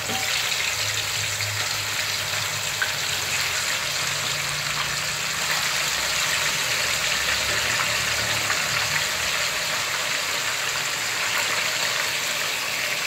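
Raw chicken pieces frying in hot oil in a wok: a steady sizzle as more pieces are added to the oil.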